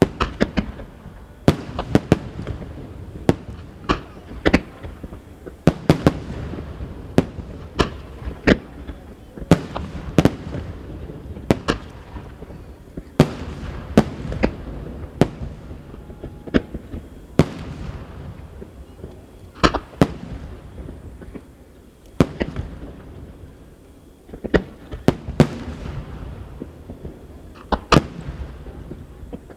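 Barrage of large aerial firework shells (shakudama, 30 cm) bursting in quick succession. Dozens of sharp booms come irregularly, often one to two a second, over a steady low rumble.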